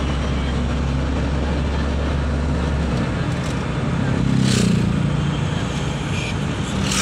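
Engine and road noise inside a moving vehicle's cabin. A steady low engine drone drops away about three seconds in, and the noise swells briefly a little after halfway.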